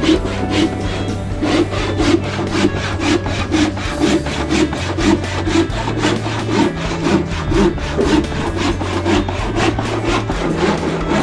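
Hand saw cutting through wood in steady back-and-forth strokes, about two a second, over background music.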